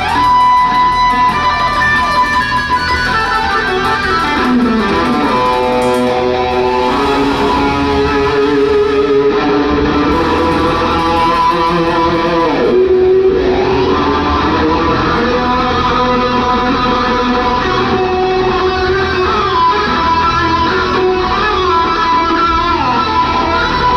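Live electric guitar lead over a band: long held notes with smooth pitch glides, including a falling slide about four to five seconds in.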